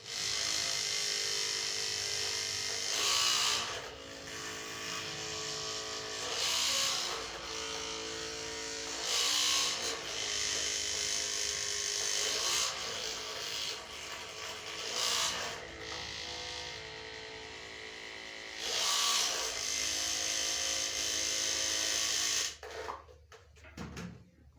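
A small electric motor buzzing steadily, switched on at the start and cut off about 22 seconds in. Its pitch shifts now and then, with several short louder surges.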